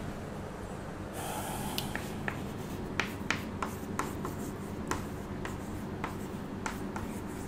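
Chalk writing on a chalkboard: irregular sharp taps and short scrapes as letters are written, starting about a second in, over a steady low hum.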